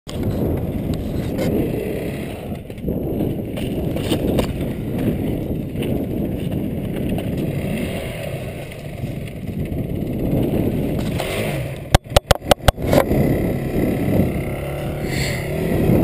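Dirt bike engines running with wind rumbling on the helmet-camera microphone, and a quick run of about six sharp clicks roughly three quarters of the way through.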